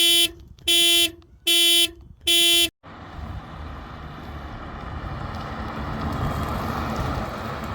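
Four short, steady horn-like beeps about 0.8 s apart, then a rushing noise that builds steadily louder.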